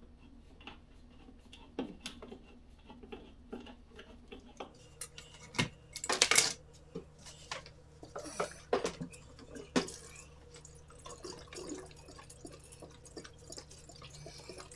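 Irregular metallic clinks, taps and knocks of hands handling and fitting the metal parts of a diesel heater, louder around six seconds in and again near nine and ten seconds, over a faint steady hum.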